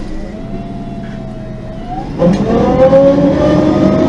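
Heard from inside the bus, the LPG engine of a MAN NG 273 M18 articulated city bus with a Voith automatic gearbox pulls the bus along. Its note rises, dips briefly about two seconds in, then comes in much louder and climbs slowly again as the bus accelerates.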